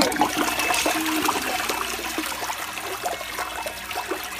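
A toilet flushing: water starts rushing in suddenly and swirls down the bowl.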